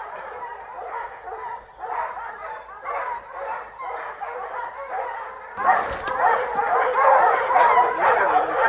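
Several hunting hounds baying and barking steadily at a treed bear, their calls overlapping; the barking gets clearly louder a little over halfway through.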